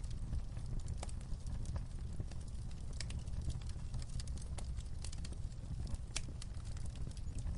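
Fire crackling: irregular sharp pops and snaps over a steady low rumble of burning.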